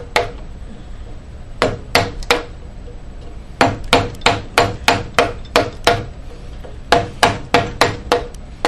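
Mallet striking the handle of a wood-carving chisel, driving it into walnut to rough out a deep relief carving. Sharp knocks with a short ring come in groups, with a quick run of about three a second in the middle.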